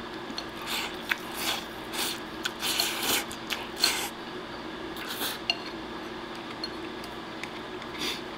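Eating sounds as egg-topped rice is shovelled from a ceramic bowl into the mouth with chopsticks: a run of noisy mouthfuls in the first four seconds, then scattered light clicks of the wooden chopsticks against the bowl.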